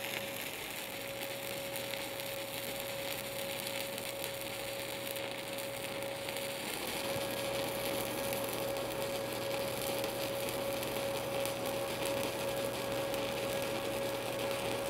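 Stick-welding arc from a 7018 electrode burning on steel plate: a steady crackling sizzle with fine irregular pops. A steady whine runs underneath.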